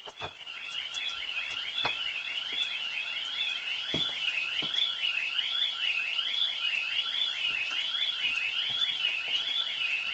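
Car alarm siren: a high electronic tone warbling up and down about once a second, over a faster series of rising sweeps, with a few knocks along the way.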